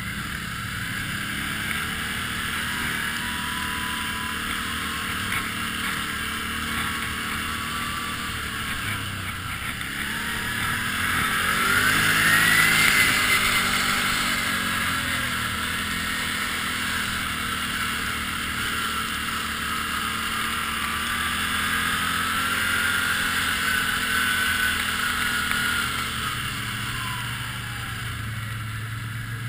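Can-Am ATV engine running under way, steady at first; its pitch climbs as it revs up about ten seconds in, peaks a few seconds later, then eases back down.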